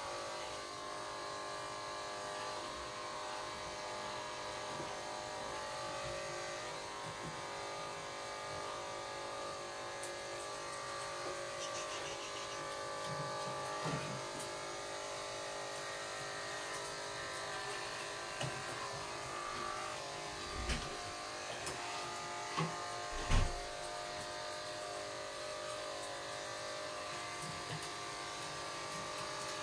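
A steady electric hum of a small motor, running unchanged throughout, with a couple of short dull thumps about two-thirds of the way through.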